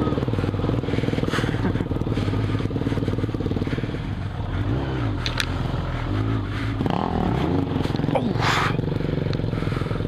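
Suzuki Bandit 1200's inline-four engine running at low trail speed, the revs rising and falling. There is a short sharp knock about five seconds in and a brief rush of noise about eight and a half seconds in.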